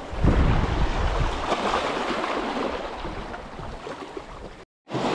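Surf washing on the shore with wind buffeting the microphone in low rumbles; the sound cuts out completely for a moment near the end.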